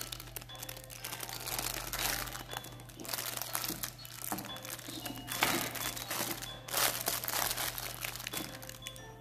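Clear plastic bags of artificial aquarium plants crinkling as they are handled, in irregular bursts a second or more apart, over a steady low hum.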